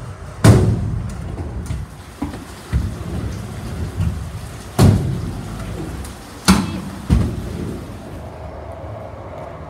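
Stunt scooter wheels rolling on a concrete skatepark bowl with a steady low rumble, broken by about five sharp clacks of the scooter hitting the concrete. The loudest comes about half a second in, with others near the middle and later on.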